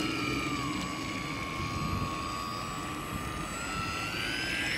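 Motor of a 3D-printed radio-controlled speed boat whining steadily as the boat runs across the water; the whine dips slightly in pitch early and then rises over the last second or so as it speeds up.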